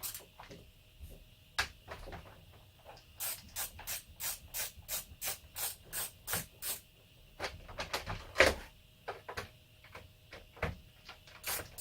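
Hand-work noises of a chainsaw being taken apart: short clicks and scrapes of tools and plastic housing, with a run of evenly spaced strokes, about three a second, in the middle and one louder scrape near the end.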